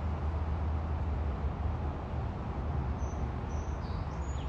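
Steady low rumble of a Canadian Pacific and two Union Pacific diesel locomotives moving away in the distance, with a few short high bird chirps near the end.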